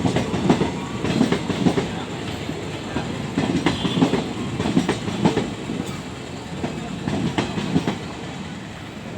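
Passenger coaches of an arriving express train rolling past, their wheels clicking over rail joints in regular groups over a steady rumble. The sound fades near the end.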